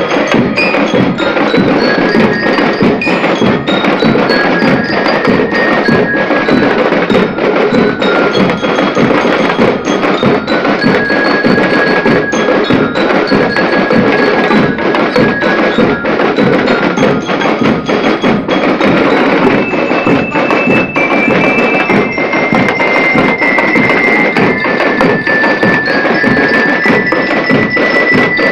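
Marching band playing: bell lyres ring out a melody in clear high notes over a steady, dense drum beat.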